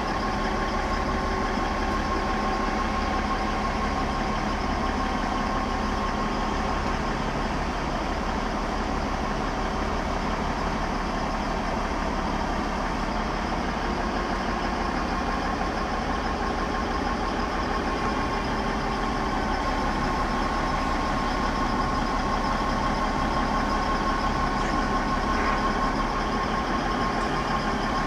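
Crane truck's engine running steadily at idle, with a steady whine above the low engine sound.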